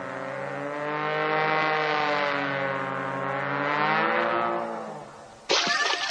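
A long, sustained droning tone with a slowly wavering pitch, swelling and then fading out about five seconds in; a cartoon soundtrack effect. Music comes in just before the end.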